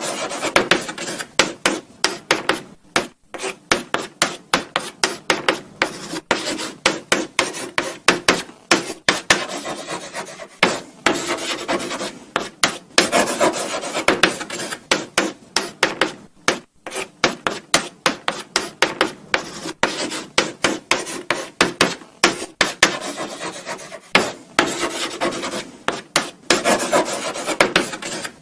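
Chalk writing on a blackboard: quick, uneven scratching strokes, several a second, with short pauses between words.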